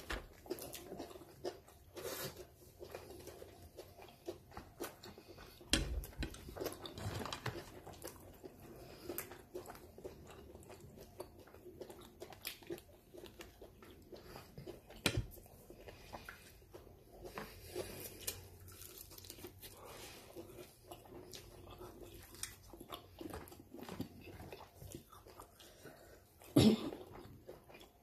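A person chewing and biting into fast food (fried chicken and a burger), with irregular crunches and mouth noises. A few sharper knocks break in, the loudest near the end.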